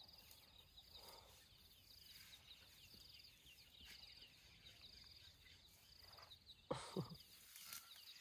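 Near silence: a faint, high-pitched insect trill repeats over and over, with one brief louder sound about seven seconds in.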